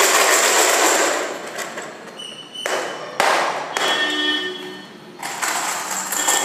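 Token coins rattling and clinking inside a clear plastic box as it is shaken to mix them before one is drawn. The shaking comes in several bursts with short pauses, the longest in the first two seconds.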